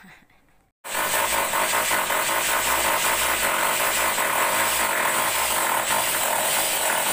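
Power drill boring into a room wall, running steadily after starting abruptly about a second in: drilling the holes for mounting a split-type air conditioner's indoor unit.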